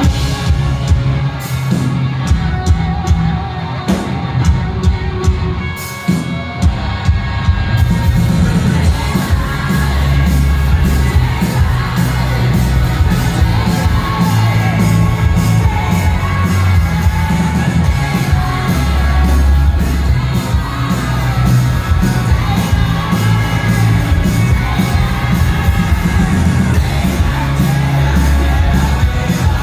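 Live rock band playing, loud, with heavy bass and drums. The first several seconds are sparser, with the full band filling in about eight seconds in. The crowd yells and whoops along.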